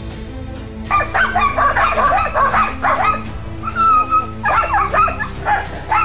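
A Belgian Malinois barking and yelping in quick runs of short high calls, with a brief held whine about four seconds in, over background music.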